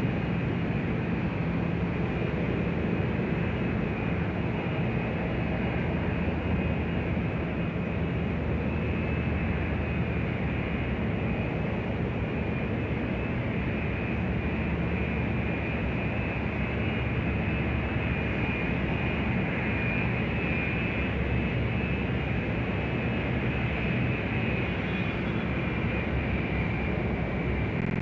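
Steady airport exterior ambience: the even rushing noise of aircraft engines running, with a low hum underneath.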